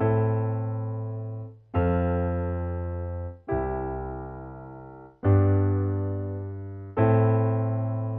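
Piano chords struck one after another, about every second and three quarters, each ringing and fading, then cut off just before the next, with a strong bass.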